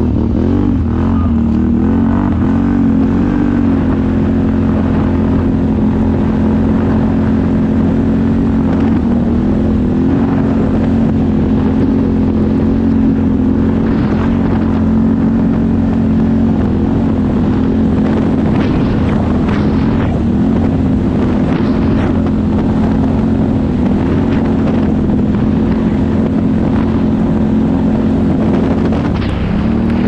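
Can-Am ATV engine running at a fairly steady cruising speed, its pitch shifting a little near the start and again at the end. A few brief scratchy noises come over it about two-thirds of the way through.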